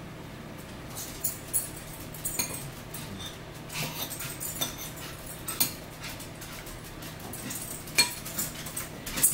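A pet dog making short, repeated sounds, mixed with scattered clicks and clinks from eating and drinking at the table.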